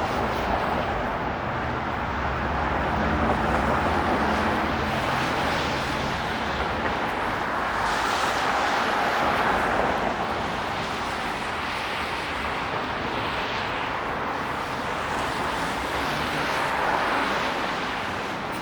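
City street traffic in the rain: tyres hissing on wet pavement, swelling as vehicles pass, with a low engine hum underneath for the first several seconds.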